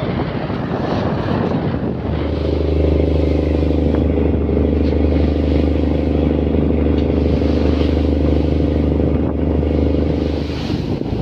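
Fishing boat's engine running steadily under way, with a hum that settles in about two seconds in over splashing and wind noise, then falls away just before the end.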